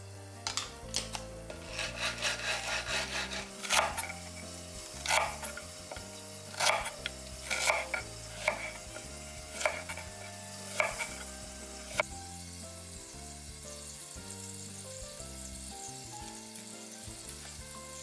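Kitchen knife chopping okra on a bamboo cutting board: about eight single sharp cuts, roughly a second apart, after a quick run of small scraping clicks. The chopping stops about two-thirds of the way through, leaving a soft steady hiss. Quiet background music plays underneath.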